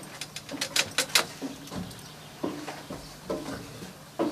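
Knocks and creaks of people moving on wooden attic floorboards and climbing up through a floor hatch: a quick run of sharp knocks about a second in, then a few short, low creaks.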